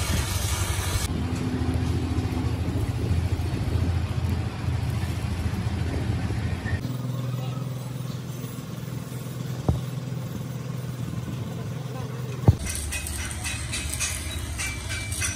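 Stick arc welding on a steel truck axle housing: the arc crackles and hisses briefly at the start and again from about three-quarters in. In between is a steady low hum, and two sharp knocks come near the middle and just before the welding resumes.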